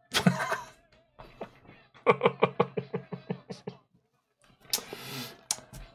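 A man laughing hard: a sharp burst of laughter, then a quick run of 'ha-ha' pulses, about seven a second, and a breathy stretch of laughter near the end.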